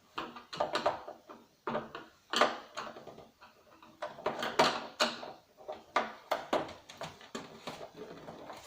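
Irregular clicks, knocks and short scrapes of a screwdriver and hands working on the plastic casing of a CRT TV/DVD combo being dismantled, with the louder knocks about two and a half and four and a half seconds in.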